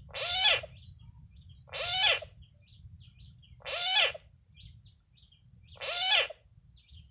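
Recorded frog call played through a remote-controlled bird-trapping loudspeaker as a coucal lure. A short call of about half a second repeats four times, about two seconds apart.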